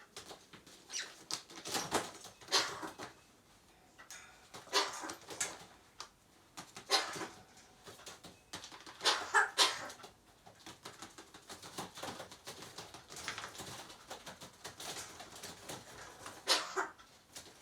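Eurasian magpie imitating a cough: short cough-like calls in bursts a few seconds apart.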